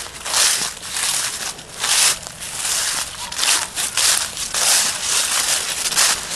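Footsteps crunching and shuffling through a thick layer of dry fallen leaves at a steady walking pace, a crackling rustle with each step.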